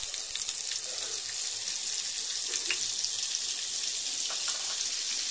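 Butter sizzling as it melts in hot oil in a frying pan: a steady, even hiss.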